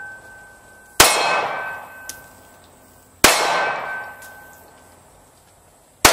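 Three 9mm pistol shots from a Glock 19 Gen 4, about two to three seconds apart, the last right at the end. After each shot comes a ringing clang that fades slowly, as from a struck steel target.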